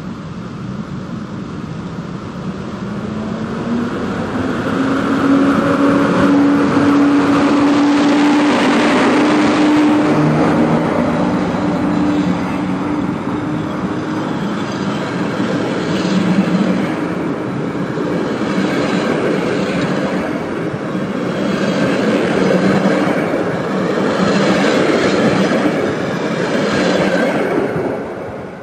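An EP07 electric locomotive and its passenger carriages pass by. The locomotive's steady hum rises slightly in pitch as it draws level. In the second half the carriages' wheels clatter over the rail joints, and the sound fades right at the end as the train goes away.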